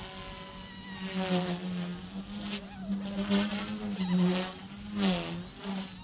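OMPHobby M1 electric RC helicopter in flight: a buzzing whine from its rotors and motor that wavers up and down in pitch as it manoeuvres, swelling louder several times.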